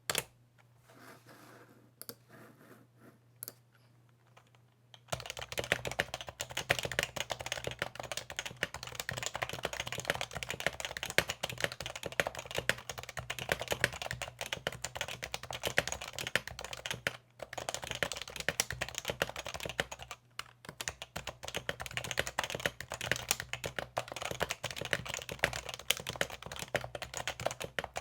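Typing on an HHKB (Happy Hacking Keyboard). A few scattered key presses come first, then fast continuous typing starts about five seconds in, with two brief pauses later on.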